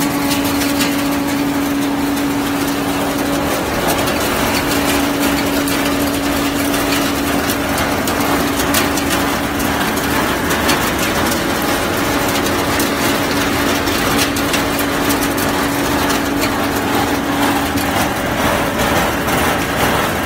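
HTL-125 soybean threshing machine running steadily: a constant belt-driven mechanical hum with scattered ticks throughout. The hum fades out near the end.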